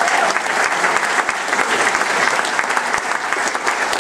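Audience applauding: dense, steady clapping from a full house.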